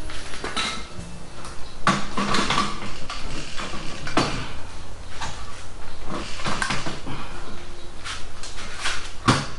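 Metal tools and motorcycle parts clinking, knocking and scraping in irregular bursts as the engine is being unbolted from a small motorcycle's frame. There are sharper knocks about two seconds in, about four seconds in and near the end.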